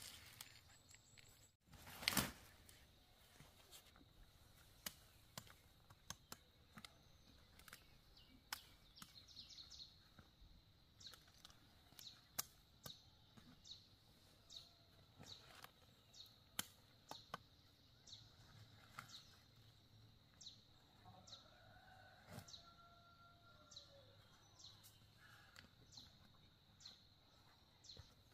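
Large knife cutting kohlrabi stems and leaves, faint sharp chops coming about once or twice a second, the loudest about two seconds in. A bird chirps briefly a little past the twenty-second mark.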